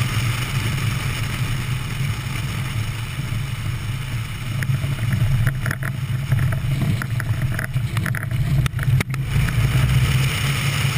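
Engine and propeller of a 1954 Piper L-21B Super Cub running with a steady drone, heard from a camera mounted outside under the fuselage, with wind rushing over the microphone. A few brief crackles come about halfway through.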